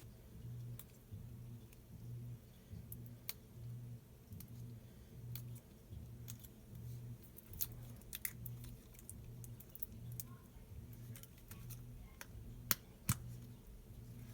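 Slime being squished and worked by hand: scattered sticky clicks and pops over a low hum that swells and fades about once a second.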